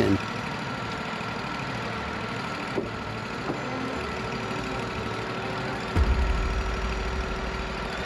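Wood-Mizer LT40 hydraulic sawmill's 26 hp engine idling steadily. A deeper low rumble comes in suddenly about six seconds in and slowly eases.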